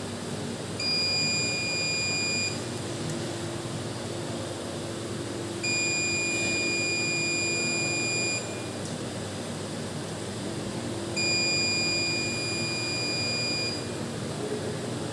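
Digital multimeter's continuity buzzer giving three long, steady high-pitched beeps as the test probes bridge the autoclave heating element's terminals, signalling a closed circuit through the element.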